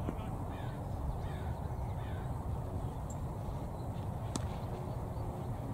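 Steady low wind rumble on the microphone with faint bird calls, and one sharp knock a little over four seconds in.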